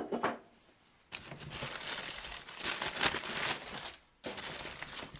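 Packing paper being unwrapped and crumpled by hand, a loud dense crinkling that starts about a second in, pauses briefly near the end, then carries on.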